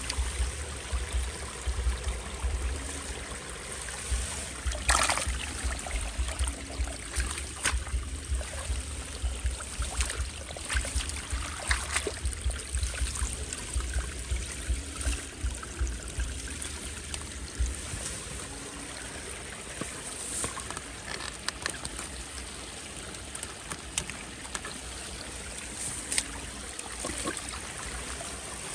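Running, trickling water with scattered splashes and knocks, over a pulsing low rumble.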